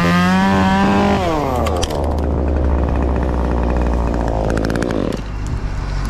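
Stihl top-handle chainsaw revved up hard for about a second, then dropping back toward idle, over a steady low engine drone.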